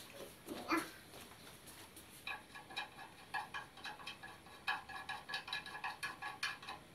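Light, irregular metallic clicks and clinks as a steel hold-down bracket is fastened to a jointer's aluminium bed extension with hand tools, after a soft knock under a second in.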